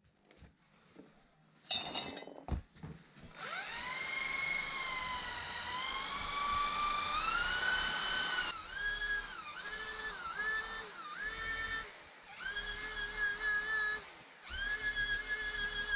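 A few clicks and knocks, then an electric power drill spins up about three seconds in and runs with a high whine. Near the middle it starts going on and off in short trigger pulses, its pitch dipping and recovering with each.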